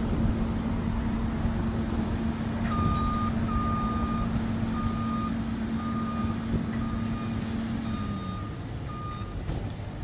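Diesel engine of a Kobelco SK210 excavator running, with a steady drone that drops away a little after eight seconds in. From about three seconds in, a backup alarm on the site sounds a series of about seven even beeps, roughly one a second.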